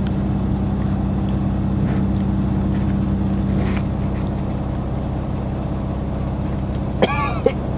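Steady low hum of the semi-truck's engine running, heard inside the sleeper cab. About seven seconds in, the man makes a short vocal sound as he tastes the hot-sauced food.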